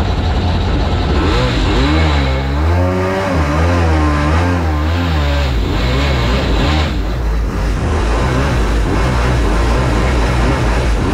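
Supercharged mini jet boat engine running at speed, its revs rising and falling several times a few seconds in, then holding steady.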